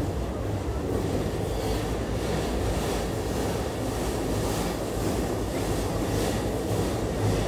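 A train running past on elevated tracks: a steady low rumble with a rushing noise over it.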